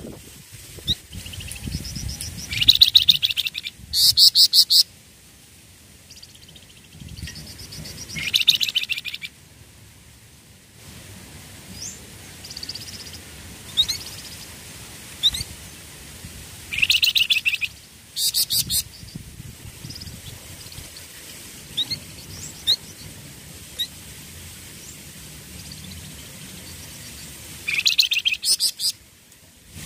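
A flamboyan songbird singing: loud bursts of fast, rapidly repeated high notes every several seconds, with short thin chirps in between.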